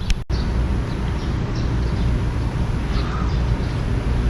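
Wind buffeting the microphone with a steady low rumble, broken by a sudden cut about a quarter of a second in. A few faint short chirps sound through it.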